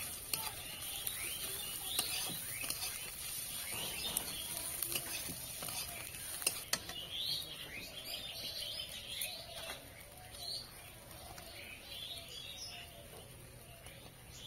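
Small birds chirping again and again, with a steady sizzle of onions frying in oil in a karahi and a few clicks of a metal spatula against the pan.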